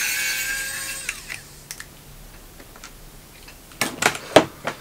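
Plastic housing of a DJI Robomaster S1 gimbal being pried open: a strained squeak that rises slowly in pitch and stops about a second in, then several sharp snaps near the end as the retainer clips pop free.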